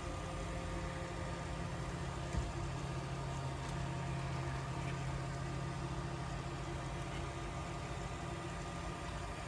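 A steady machine hum with several even tones, and one light click about two and a half seconds in.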